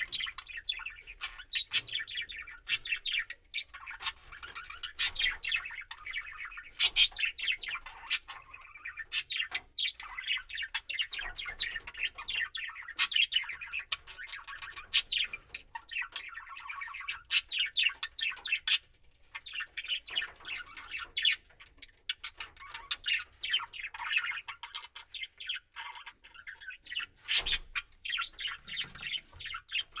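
Budgerigars chattering and warbling: a dense run of quick chirps and sharp squawks that goes on almost without pause, with a couple of short lulls in the second half.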